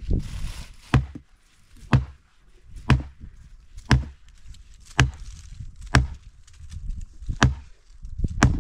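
Wood being chopped with an axe: sharp, regular strikes about once a second, eight blows in all.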